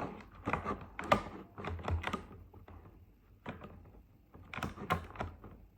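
Scissors snipping through tape and plastic packaging, with handling of the wrapped pencils: a quick series of irregular clicks and crackles in two bursts, with a quieter pause in between.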